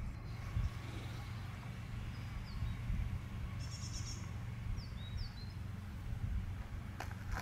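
Small birds chirping a few short calls, with a brief high trill midway, over a low steady rumble of outdoor background noise; a few sharp clicks come near the end.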